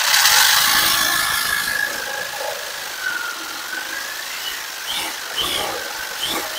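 Jigsaw running and cutting a small circle out of a piece of wood. Its motor whine wavers and dips in pitch about three seconds in, and there are a few short high chirps near the end.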